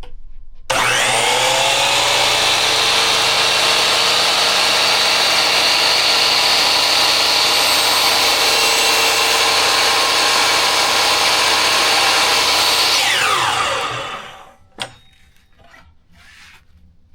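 Hercules miter saw (Harbor Freight) finishing a cut through a wood board: the motor starts suddenly with a rising whine, runs steadily at full speed for about twelve seconds, then winds down with a falling whine. A single click follows shortly after it stops.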